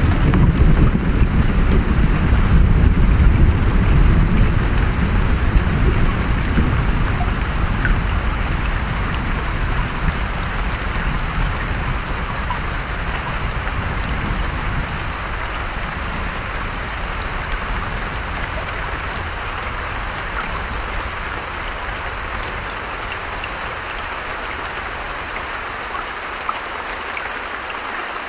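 Steady heavy rain with a deep, rolling rumble of thunder that fades away over the first half, leaving only the rain.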